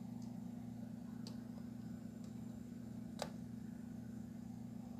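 Multimeter test probes clicking against a wall socket's contacts, a couple of faint taps and one sharper click about three seconds in, over a steady low hum.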